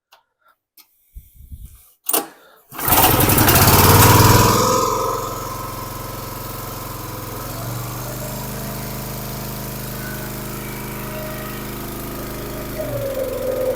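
Briggs & Stratton 306cc single-cylinder engine on a log splitter starting: it catches about three seconds in, runs high for a couple of seconds, then settles into a steady run.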